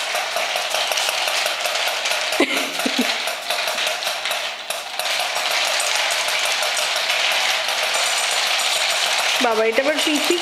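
Battery-powered walking toy dog on a leash running: its small motor and gears give a steady whirring clatter with fast regular clicks as it moves over the tile floor. Short falling voice-like calls break in about two seconds in and again near the end.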